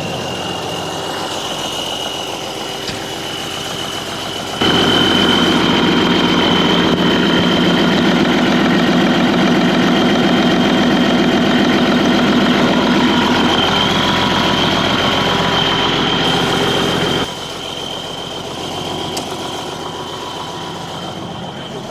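Case 4690 four-wheel-drive tractor's diesel engine running, with a steady high whine over it. About four and a half seconds in it abruptly gets much louder, stays so for about twelve seconds, then drops back.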